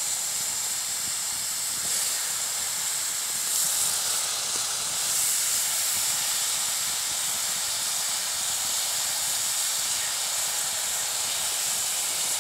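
A red-hot rock dropped into water in a birch bark bowl, hissing steadily and loudly as the water flashes to steam around it.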